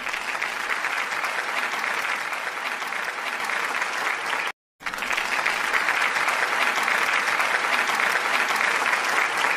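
A crowd applauding, steady clapping that breaks off abruptly for a moment about halfway through and then picks up again.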